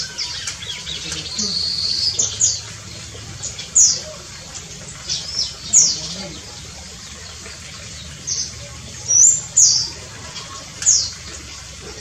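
Songbirds calling: short, high notes that sweep downward, one every second or so, with a brief trill about a second in, over a faint steady low hum.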